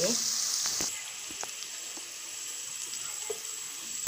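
Onions and diced green capsicum sizzling in oil in an aluminium kadai, with a few light clicks of the perforated spoon against the pan. The sizzle drops to a fainter hiss about a second in.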